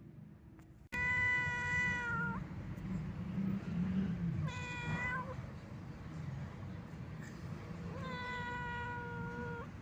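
Domestic cat meowing three times: two long, drawn-out calls with a shorter one between them, each held on one pitch and bending at the end.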